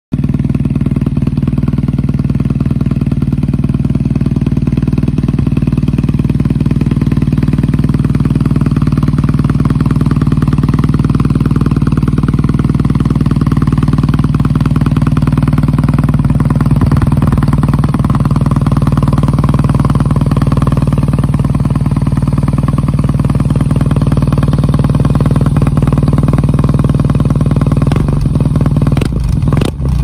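BMW R nineT's boxer-twin engine idling steadily through a Zard titanium twin slip-on exhaust.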